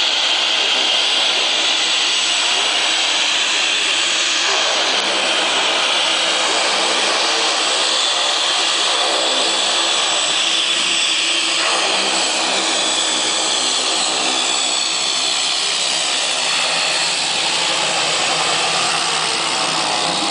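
North American Rockwell OV-10 Bronco's twin turboprop engines running as it taxis: a steady loud high whine over propeller noise, drifting slightly in pitch as it goes by.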